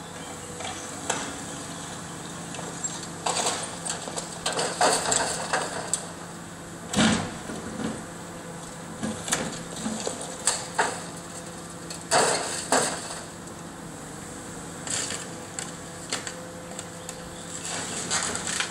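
Demolition excavator's diesel engine running steadily while it tears into a house, with irregular crashes and cracks of breaking brick, timber and glass debris, the loudest about seven and twelve seconds in.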